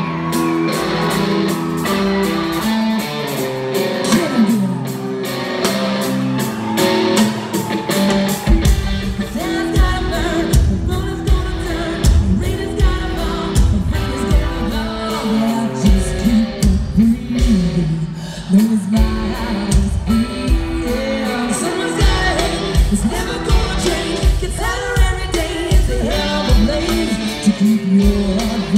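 Rock band playing live: electric guitars and a woman singing, with the full drum kit coming in hard about eight seconds in and driving a steady beat from there.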